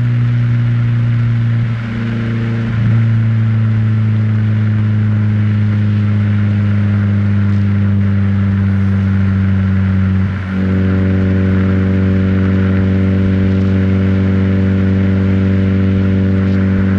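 Renault Twingo's four-cylinder engine heard through its exhaust close to the tailpipe, a loud steady drone held at one engine speed. It dips briefly twice, about two seconds and ten seconds in, and after the second dip higher overtones come through more strongly.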